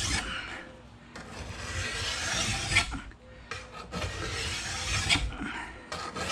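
Flat bastard file drawn along the edge of a steel Windsor sprocket-nose chainsaw bar clamped in a vise, in a few long strokes of about two seconds each, dressing off a burr along the rail.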